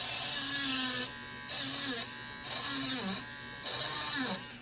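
Cordless diamond-tip engraving pen buzzing as it cuts characters into a padlock. Its tone dips under load and the scratchy hiss changes from stroke to stroke.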